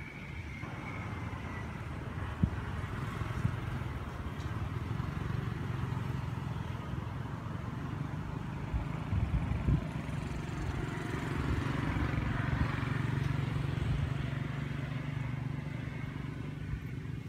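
A motor vehicle's engine running with a steady low hum that grows stronger about ten seconds in and eases near the end, with a couple of brief knocks.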